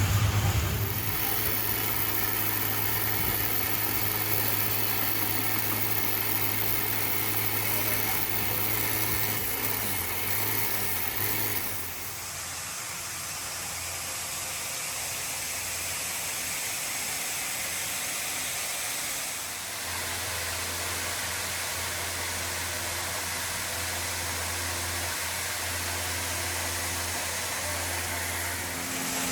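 Woodworking machine's electric motor running with a steady low hum. The sound drops and changes about twelve seconds in, and shifts again about twenty seconds in.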